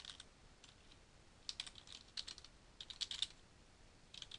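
Faint computer keyboard typing: short runs of keystroke clicks with brief pauses between them.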